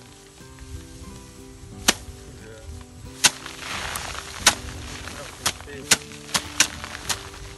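Bundles of rice stalks beaten by hand against a wooden threshing board: about eight sharp smacks, spaced a second or so apart at first and coming faster near the end as several threshers strike in turn, with a brief rustling hiss of scattering grain and straw around the middle.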